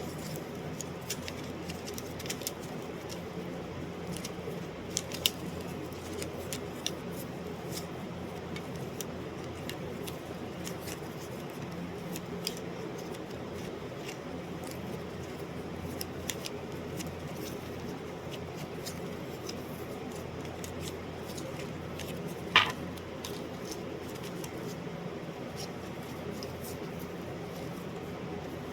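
Steady low hum of room noise with scattered small clicks, one louder about five seconds in and a sharper one about three-quarters through.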